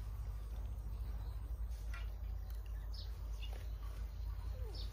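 Scattered short bird chirps, a few over the span, over a steady low rumble.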